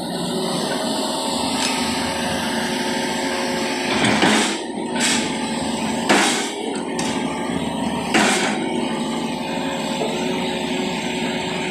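Heavy road-work machinery running steadily, with three loud clanking hits about two seconds apart.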